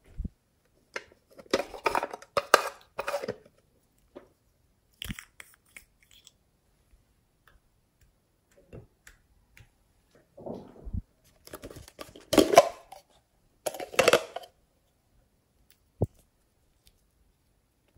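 Hard plastic clicks and clatter as small cosmetic tubes and caps are picked up, handled and uncapped, in a few short clusters with quiet gaps between.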